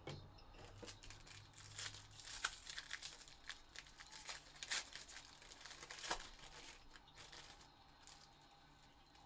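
Faint crinkling and crackling of a black foil pouch being handled and torn open, the sealed wrapper around a graded trading card. The crackles thin out near the end.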